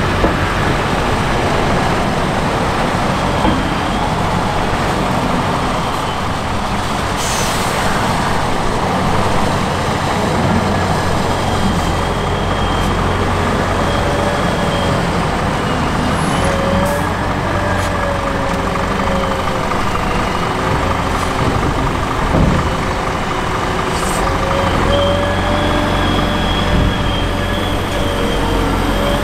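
Heavy diesel engines of a Scania tipper truck and a Claas Torion wheel loader running steadily. A wavering whine rises and falls through the second half, and there is a short hiss about seven seconds in.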